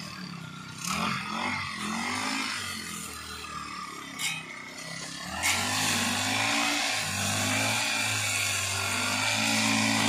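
Backpack brush cutter's small engine running and revving up and down as it cuts grass, growing louder about five and a half seconds in. A single sharp tick a little after four seconds.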